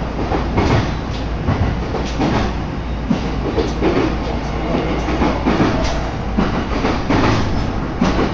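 Train running at speed, heard from inside the carriage: a steady rumble with repeated clacks of the wheels over rail joints.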